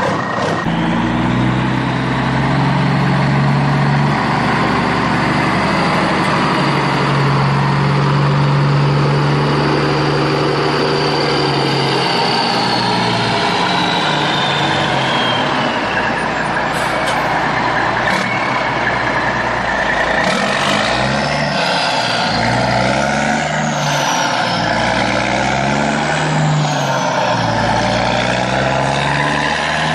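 Heavy truck engine running steadily, then revving up and down repeatedly in the second half.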